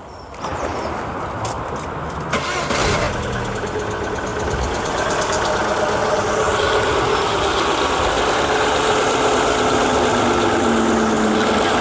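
Rover K-series four-cylinder petrol engine starting just after the opening and then idling steadily, running on freshly changed oil to hear whether it now sounds smoother.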